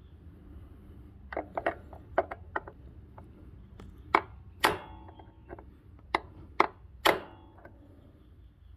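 Tapping a socket to drive a new cam actuator seal into an engine's front cover: about ten sharp taps in irregular groups, the louder ones ringing briefly, over a steady low hum.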